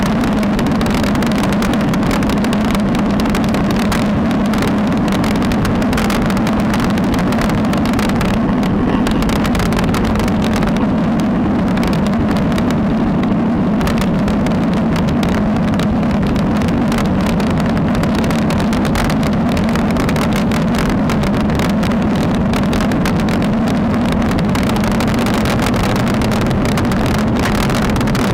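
Steady wind and road rumble picked up by a bike-mounted action camera as a road bike rolls along at speed: a constant low drone with hiss over it, easing slightly in the middle.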